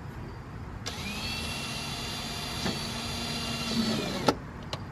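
Power drill running: it spins up about a second in, runs steadily for about three seconds, then winds down and stops with a click.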